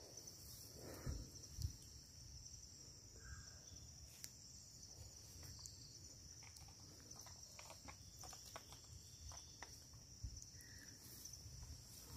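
Quiet forest ambience: insects keep up a steady high-pitched drone, with a few faint ticks and rustles.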